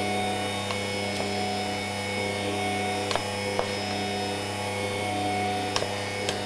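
Bosch stand mixer running at a steady speed, its whisk beating cake batter, with a few light clicks scattered through.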